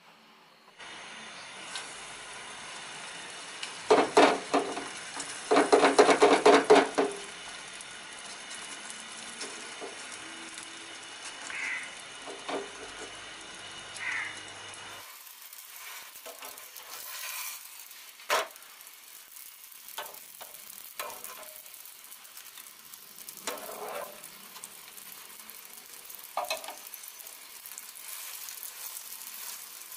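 Paratha frying in oil in a nonstick frying pan: a steady sizzle with scattered scrapes and taps from a plastic spatula turning it. A couple of loud, noisy bursts come in the first few seconds.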